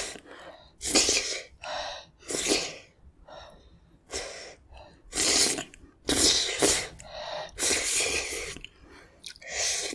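Close-miked slurping of wet noodles out of a spicy, perilla-seed-thickened broth: a series of sharp, airy slurps, roughly one a second, with short pauses between pulls.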